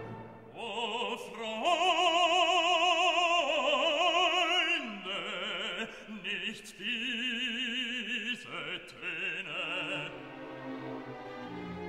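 Background music: an operatic voice singing long held notes with a wide vibrato, in a classical style.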